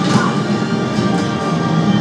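Film soundtrack music playing over the home cinema's speakers, steady and loud.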